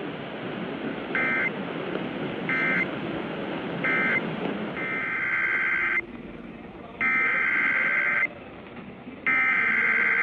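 Emergency Alert System data bursts: three short end-of-message bursts about a second apart, then three longer header bursts announcing the next alert, each a harsh two-tone digital screech, over steady radio hiss.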